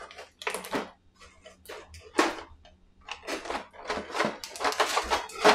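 Plastic miniatures and box insert trays being handled: irregular taps, clicks and rustles as a figure is tried in the tray, with the loudest knock near the end.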